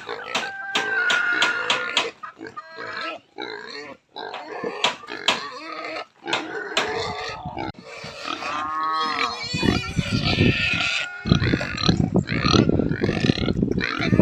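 Pigs grunting and squealing, with short high cries, a louder and rougher stretch of grunting in the last few seconds.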